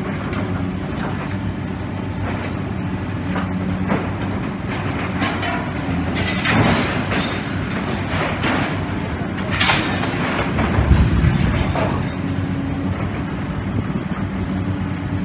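Demolition excavator's diesel engine running steadily under load, with metal and rubble scraping and crashing several times over it, the heaviest a deep thud about two-thirds of the way through.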